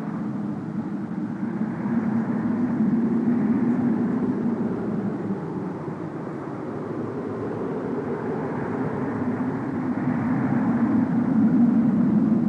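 Wind sound effect: a low rushing wind that swells about two seconds in, eases off around the middle and builds again near the end.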